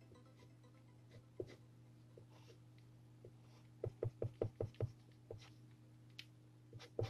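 Pencil shading strokes on drawing paper, faint and scratchy, with a quick run of about seven taps about four seconds in, over a steady low hum.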